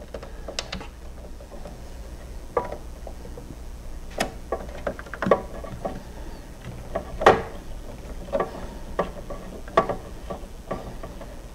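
Irregular clicks and light knocks of a screw, tool and plastic parts while the screw that holds a cooling-fan shroud inside a rear-projection TV cabinet is fastened, roughly one a second.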